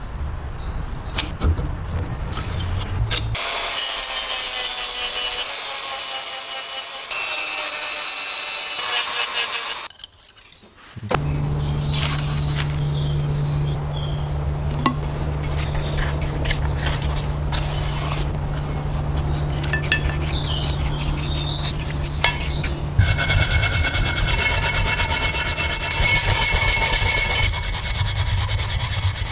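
Metal parts of a rusty stapler being scrubbed and rubbed to take off rust, a steady scratchy rasping that changes character several times. It drops out briefly about ten seconds in, and a steady low hum runs under it for a stretch in the middle.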